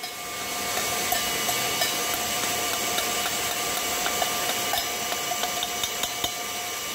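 Stand mixer running at speed, its wire whisk beating an egg mixture in a steel bowl as hot sugar syrup is poured in: a steady whir with a faint whine and scattered light clicks.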